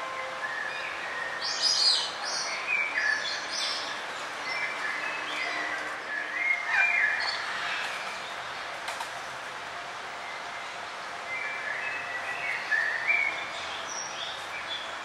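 Forest songbirds chirping and singing in short bursts of quick notes and whistled glides, with a lull in the middle, over a steady hiss of background noise.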